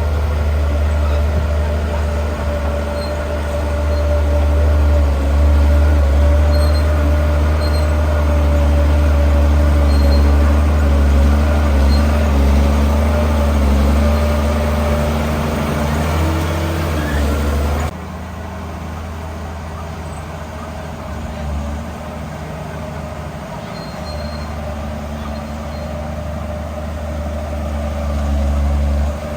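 Heavy diesel engine of earthmoving machinery running with a deep, steady rumble. About two-thirds of the way through the sound drops suddenly to a quieter engine drone.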